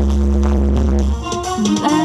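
Electronic dance music played loud through a large outdoor line-array and 18-inch subwoofer sound system. Heavy bass cuts out about a second in, leaving a higher melody with gliding notes over crisp percussion.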